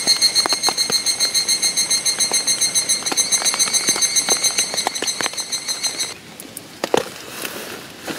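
A cicada calling in the trees at dawn: a high, rapidly pulsing trill that stops abruptly about six seconds in. Faint scattered clicks and rustles follow near the end.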